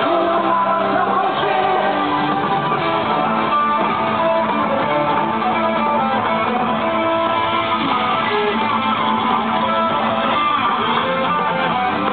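Live heavy metal band playing, with electric guitars carrying a melody of held notes over the band and no singing.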